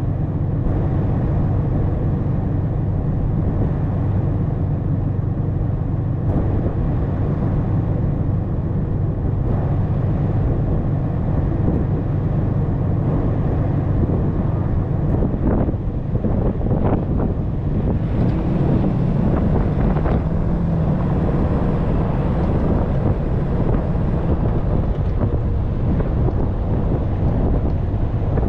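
Dodge Ram 3500 pickup driving on a dirt road: a steady engine drone with tyre rumble, and wind buffeting the hood-mounted camera's microphone. A few short knocks come about halfway through.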